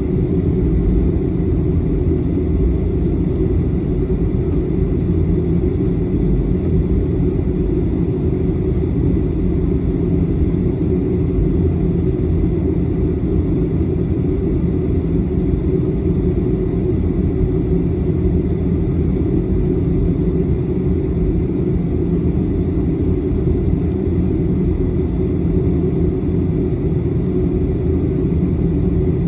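Cabin noise inside a jet airliner taxiing: a steady low rumble of the engines at taxi power and the wheels rolling on the taxiway, with a faint steady high tone above it.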